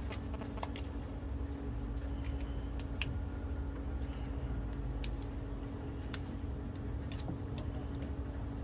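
Scattered light clicks and ticks of copper coil wire being handled and pressed into the slots of a ceiling fan stator, over a steady low hum.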